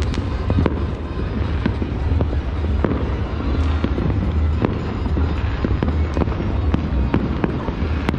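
Fireworks and firecrackers going off all over a city, a continuous scatter of many overlapping bangs and pops over a low rumble.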